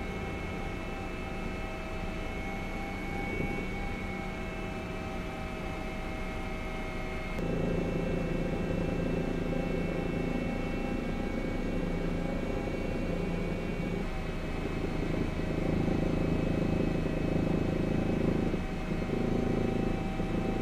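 Steady drone of a helicopter, with several constant whining tones over a low rumble. The rumble grows louder about seven seconds in and shifts again at about 14 and 19 seconds.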